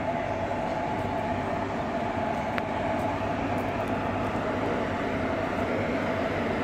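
Five coupled Indian Railways WAG-7 electric locomotives moving slowly past, running with a steady hum and a steady whine from their traction motors and cooling blowers.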